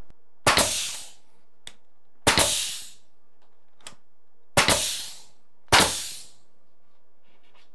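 Ridgid nail gun firing four nails into the corner of a wooden door jamb: each is a sharp shot trailing off in a short hiss, the last two about a second apart, with a couple of faint clicks between.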